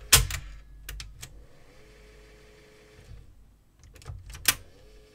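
TEAC A-103 cassette deck's piano-key transport controls clunking as they are pressed, with the deck's motor and tape mechanism whirring in between. A steady whirr comes in about two seconds in, stops, and comes in again near the end after a loud key clunk.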